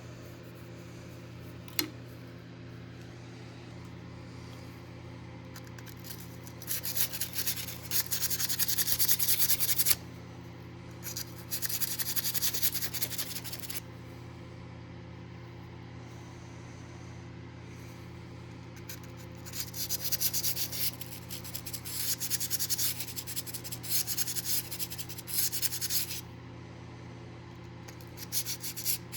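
Hand rubbing or sanding strokes on an old pocket knife, as it is cleaned up, in four bursts of several seconds each. A steady low electrical hum runs underneath, and there is a single click early on.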